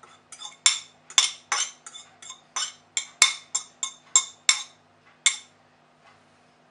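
Metal utensils clinking and scraping against a glass bowl, a rapid run of short ringing taps about four a second that stops about five seconds in, as chopped cilantro is scraped off a knife into the bowl.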